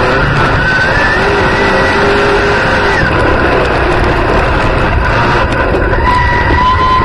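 Dirt-track race car's V8 engine running at racing speed, heard from inside the cockpit. The engine note rises and falls with the throttle through the turn, over a steady roar of engine and tyres on dirt.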